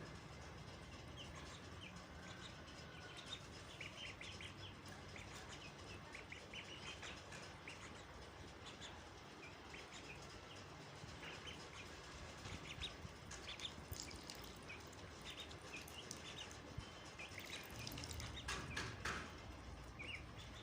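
Ducklings and chicks peeping in short, high chirps scattered throughout, with a few sharp taps near the end.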